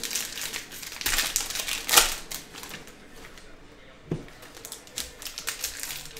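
Foil wrappers of trading-card packs crinkling, with cards being handled: a string of sharp crackles, loudest about two seconds in, and a short knock about four seconds in.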